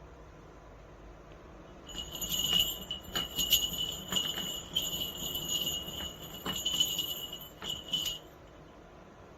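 Small jingle bell, such as a cat's collar bell, jingling continuously for about six seconds, starting about two seconds in, as the cat moves.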